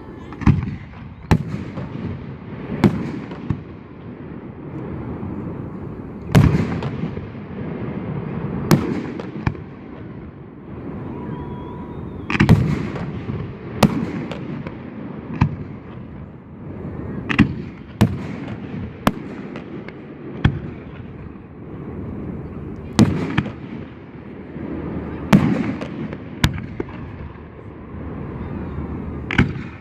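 Fireworks display: a string of sharp bangs from bursting shells at irregular intervals of a second or two, each trailing off in a low rumbling echo.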